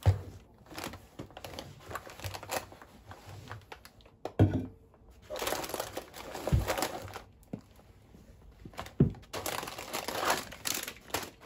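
Canvas tote bag rustling and crinkling as items are lifted out by hand, with a few knocks as a drink can and a boxed sandwich are set down on a desk.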